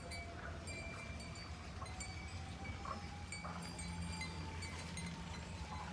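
Faint cattle-yard background: an electric water-pump motor hums steadily while it fills the trough, with a few light metallic clinks now and then.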